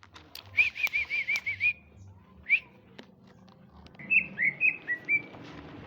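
Male green leafbird (cucak ijo) singing: a quick run of about seven identical rising-and-falling whistled notes, a lone note, then a second phrase of about six varied notes.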